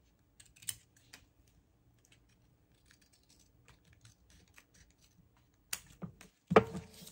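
Scissors making a series of small, irregular snips through paper as excess is trimmed from a journal page, with a louder knock near the end.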